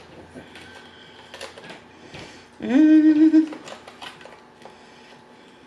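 A woman's held vocal sound, rising at first and then steady for about a second, roughly three seconds in. Around it are light clicks and taps from a clear plastic plate as a piece of fried chicken is handled.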